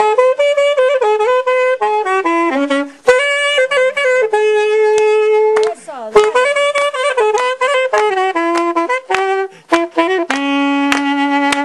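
Solo saxophone playing a huayno melody, moving quickly from note to note, with a long held low note near the end.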